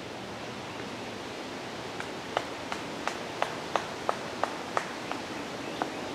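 Steady outdoor noise with a run of about ten short, sharp claps, roughly three a second, starting about two seconds in.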